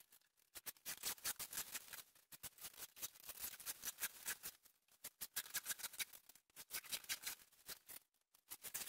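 Protective plastic film being peeled off a clear acrylic (Plexiglass) sheet and crumpled by hand: irregular crackling and crinkling in quick clusters with short pauses.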